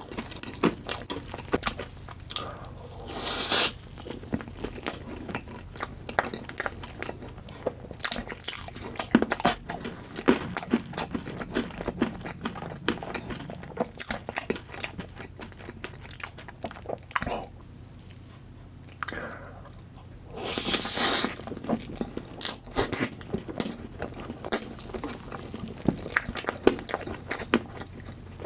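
Close-miked mukbang eating sounds of chocolate cake being bitten and chewed, with many sharp, crisp clicks from the mouth. Twice, about three seconds in and again near two-thirds through, there is a louder, longer noisy stretch.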